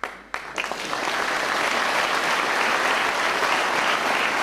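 Audience applauding: a few scattered claps at the start build within about half a second into dense, steady applause.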